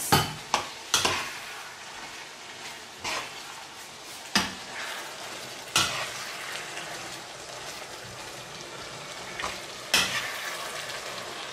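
Metal spoon stirring minced meat and diced carrots in a frying pan, scraping and now and then clacking sharply against the pan, over a steady frying sizzle.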